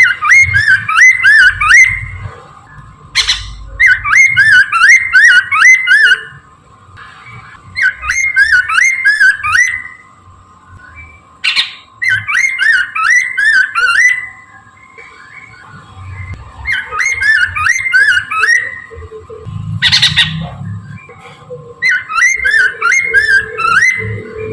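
Chinese hwamei (poksay Mandarin) singing loud phrases of rapid, looping whistled notes. There are six bursts, each about two seconds long, with short pauses between them. A few single sharp calls fall in the gaps.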